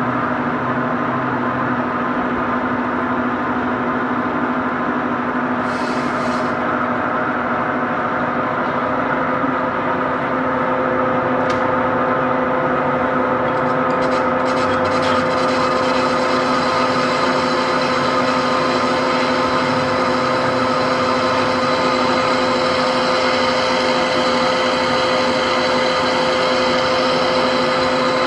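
Lathe turning a bronze ship propeller, a steady machine hum with a few constant tones, while the cutting tool faces the propeller's hub. A few short scraping sounds come in the middle, and the hum grows a little louder about ten seconds in.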